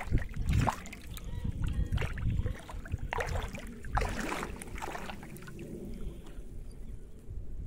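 Pond water splashing and sloshing around a man wading waist-deep while he hauls in a fishing net line and works it with a bamboo pole. Sharper splashes come near the start, about three seconds in and about four seconds in.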